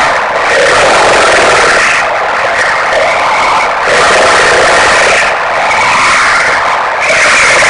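Loud, rasping snoring of an elderly man, in quick cycles broken by short pauses about every one and a half seconds.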